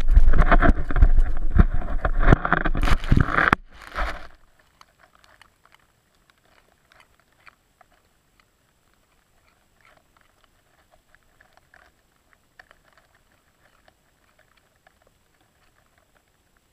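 A vizsla biting and chewing a raw carrot right at the microphone: a rapid run of loud crunches for about four seconds, then it lets go and only faint scattered ticks remain.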